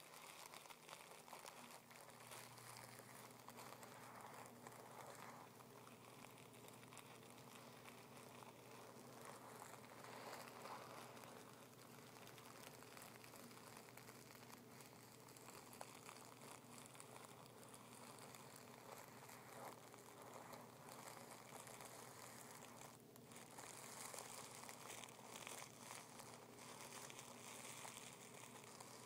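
Fingertips rubbing over crumpled tissue paper: a faint, continuous crinkling and rustling.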